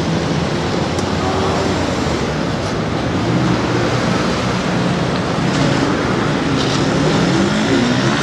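Steady street traffic noise, with vehicle engines running.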